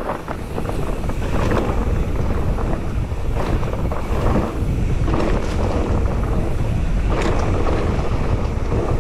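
Wind buffeting the microphone and knobby tyres rolling over a dirt trail on a mountain bike descent, with frequent small clicks and rattles from the bike over roots and rocks.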